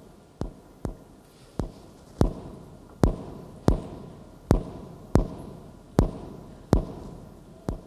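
Slow, evenly paced heavy thuds, a little over one a second, each ringing on in a large hall. They grow louder toward the middle and ease off near the end.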